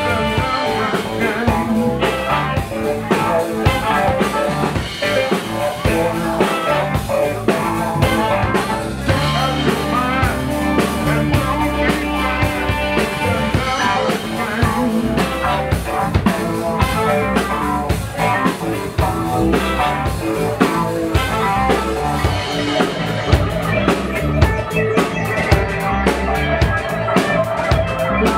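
A live band playing: drum kit, electric bass and electric guitar, with electronic parts triggered from a pad controller.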